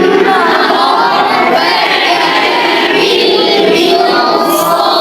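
A group of children chanting a Quran verse together in a drawn-out, melodic recitation.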